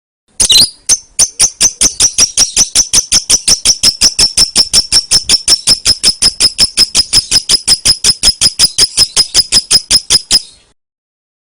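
Lovebird giving its 'ngetik' (typing) call: a long run of rapid, evenly spaced high-pitched ticking chirps, about six a second. It starts about half a second in and cuts off abruptly after some ten seconds.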